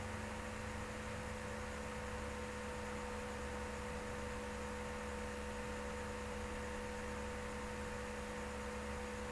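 Steady electrical mains hum with an even hiss, and a few faint steady tones in it.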